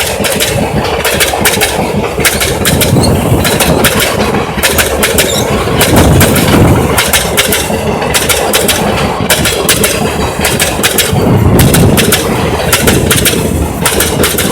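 A passing electric-hauled express passenger train: its wheels clatter and rattle over the rails in a dense, rapid run of clicks over a loud, steady rumble.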